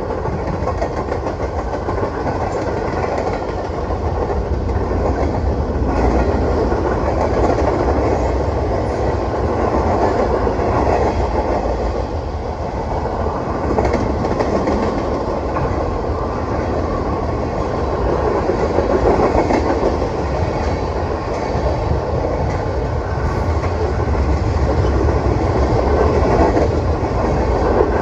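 Norfolk Southern freight train's cars rolling steadily past, with a continuous rumble and clatter of steel wheels on the rails.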